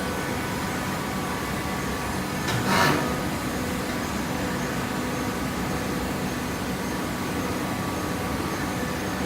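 Coconut coir fibre baler running with a steady machine hum, with one short hiss about two and a half seconds in.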